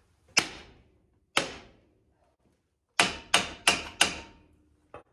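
Hammer blows on the front brake drum of a 1970 International Scout, knocking it to work it off the hub. Two single blows a second apart, then a quick run of four, each with a short metallic ring.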